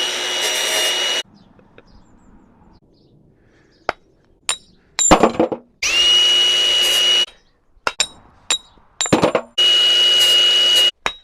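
Electric power tool running in three short bursts of about a second and a half, each spinning up quickly to a steady high whine. Sharp knocks and taps come between the bursts.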